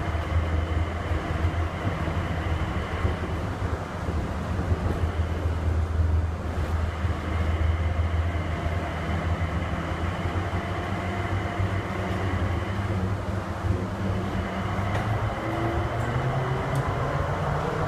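Cabin noise of an automated airport people-mover train running through a tunnel: a steady low rumble with a faint high tone above it. Near the end a whine from the drive rises in pitch.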